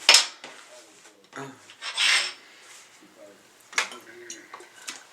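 Three short rasping, rubbing handling noises, with quieter faint clinks between them.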